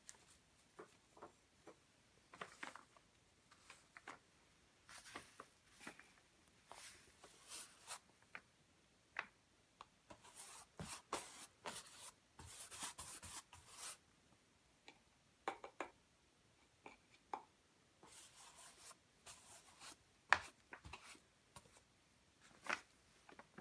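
Wide flat bristle brush spreading gesso over a stretched canvas: soft, scratchy brush strokes, one after another, with a few small clicks and taps between them.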